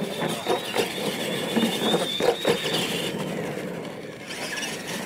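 Radio-controlled monster trucks running on a dirt track: a steady high whine from their electric motors and gears, with knocks and thumps of the trucks over the course in the first two and a half seconds. The whine breaks off about three seconds in and comes back a second later.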